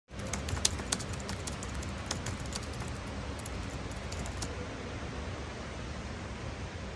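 Steady indoor background hiss over a low hum, with a run of light clicks and taps through the first four and a half seconds that then stops.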